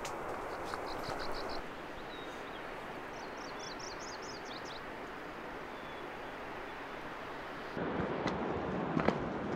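Steady outdoor rush of background noise on a mountain trail, over which a small songbird sings two short phrases of quick, high, repeated notes. Near the end, footsteps crunch on the gravel and rock path.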